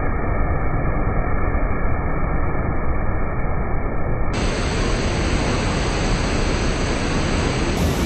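Steady roar of the Rhine Falls' churning white water, a dense rushing noise that turns brighter about four seconds in.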